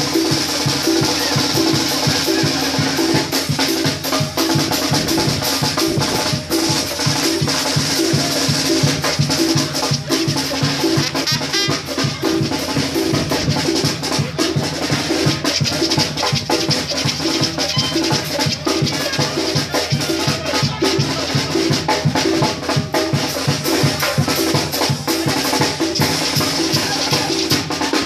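Live Mexican banda brass band playing dance music, its big drum keeping a steady, even beat under the tuba and horns.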